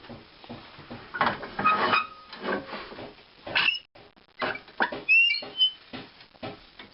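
A homemade Longworth lathe chuck being handled on the lathe spindle: irregular knocks and clatter with a few short squeaks.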